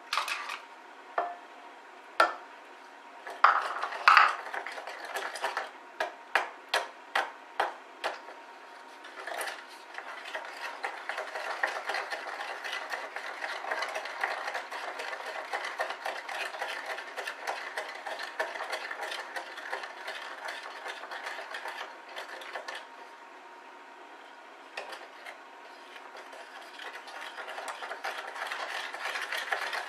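A run of sharp clinks and taps as bowls and a spoon are handled. Then a wooden spoon stirs an egg into a thick chocolate mixture in a glass mixing bowl, scraping steadily against the glass. The stirring pauses for a few seconds and starts again near the end.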